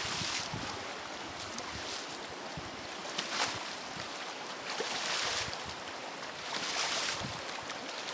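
Choppy, agitated river water rushing and splashing, with waves surging louder every second or two. Wind buffets the microphone.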